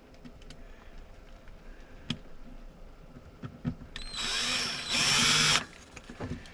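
Cordless drill-driver driving a screw in two short runs, about four and five seconds in, after a few faint handling clicks.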